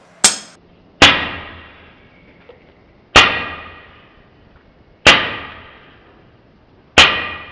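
Homemade PVC PCP air gun valve dumping compressed air, five sharp cracks about two seconds apart, the first the quietest, each dying away over about a second with a ringing tail.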